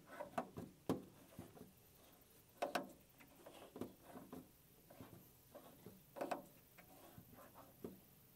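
Small close-quarters tubing cutter being turned by hand around a copper water line, scoring the pipe to cut it: irregular light clicks and scrapes from the cutter's wheel and rollers, with a few louder ticks.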